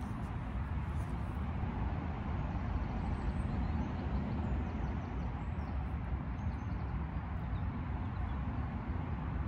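Steady low rumbling background noise, with no distinct sounds standing out.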